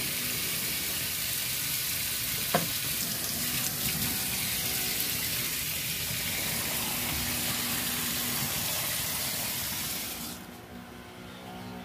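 Kitchen tap running into a stainless steel sink as seafood is rinsed under the stream by hand. There is a brief knock a couple of seconds in, and the water stops about ten seconds in.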